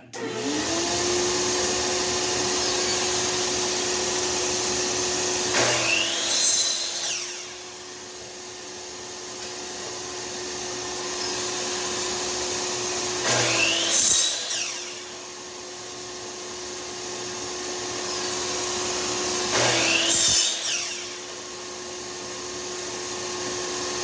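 Shop vacuum running steadily on the dust port of a Ryobi miter saw. About 6, 13 and 20 seconds in, the saw's motor starts with a rising whine, cuts briefly through a cedar board and winds down, three times in all.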